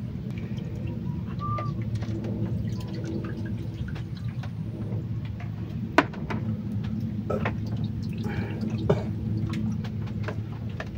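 Water dripping and trickling with small knocks and clicks as a mesh fish net is handled at the water's edge, with one sharper knock about halfway through. A steady low hum runs underneath.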